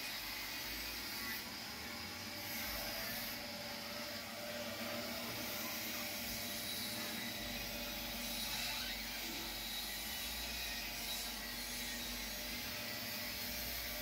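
Small electric screw oil press running steadily under load, its screw forcing oilseed through the heated barrel as press cake comes out of the nozzle; a continuous mechanical hum and rubbing noise.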